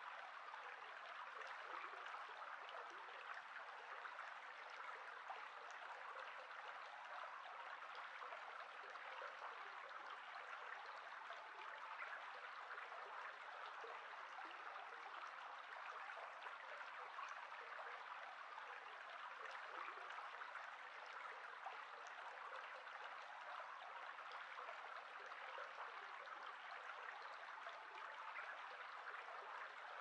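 A shallow stream flowing over gravel and stones, a faint, steady rush of water.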